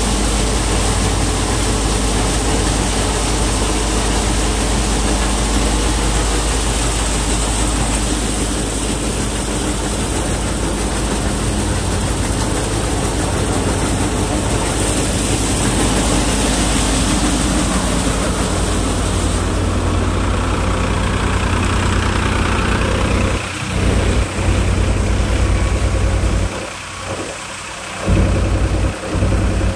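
A tractor's diesel engine running steadily under load, powering a multicrop thresher. The thresher's drums and pouring grain are mixed in. The sound is briefly muffled a few times near the end.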